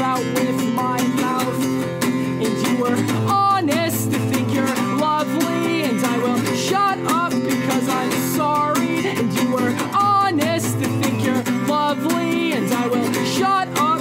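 Band music led by strummed guitars, with a melody line bending over them.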